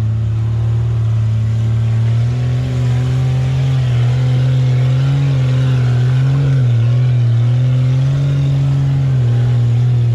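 Ford Bronco's Powerstroke diesel engine running under light throttle on a trail, its steady low note rising and falling slightly in pitch as the engine speed changes.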